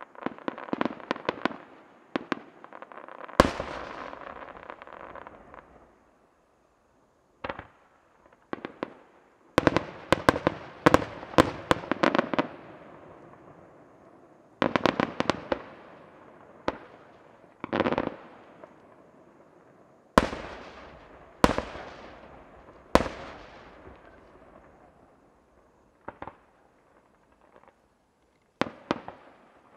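Aerial firework shells bursting in quick volleys of sharp bangs, each bang tailing off into a fading rumble, with brief lulls between volleys.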